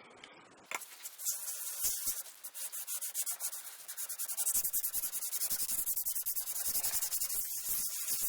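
Cast iron sole of a Stanley No.4 Bailey hand plane being rubbed back and forth on sandpaper, a steady rasping scrape in quick repeated strokes, to flatten the sole and show up its hollows.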